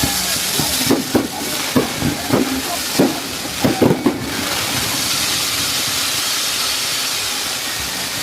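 Firework fountains spraying sparks with a steady loud hiss, with a handful of short sharp pops in the first half.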